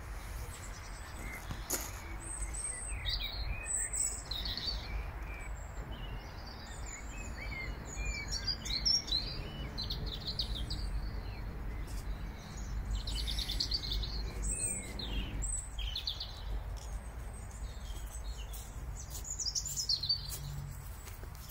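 Garden birds chirping and singing in short, scattered calls and trills, over a steady low background rumble.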